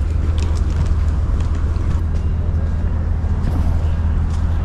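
An engine running steadily with a low, even hum, with faint scattered clicks over it.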